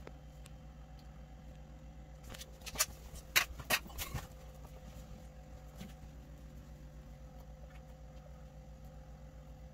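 Quiet, steady low hum, with a short run of sharp scratching clicks between about two and four seconds in.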